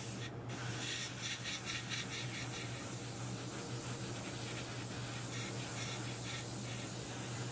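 Airbrush hissing as it sprays paint, the airflow cutting out briefly just after the start when the trigger is let off, then running steadily again.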